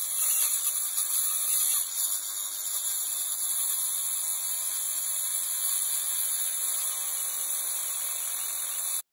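Angle grinder with a thin cut-off disc cutting into metal: a steady, high-pitched grinding that cuts off suddenly near the end.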